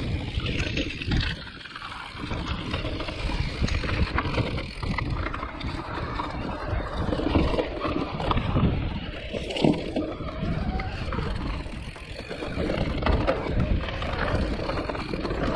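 Mountain bike rolling over a rough trail: steady tyre and rolling noise with frequent small rattles and knocks.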